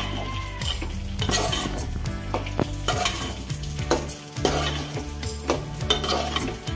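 Metal spatula scraping and knocking against a metal pot in irregular strokes while potatoes and okra sizzle in hot oil, being sautéed with spices.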